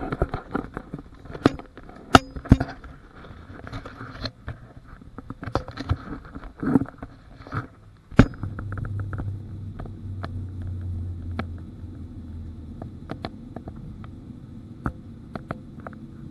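Clicks, knocks and rustling of a handheld camera being handled and moved about against the cabin window, ending in one loud click. Then the steady low rumble of the Boeing 737's cabin as the airliner taxis, with a deeper hum for a few seconds.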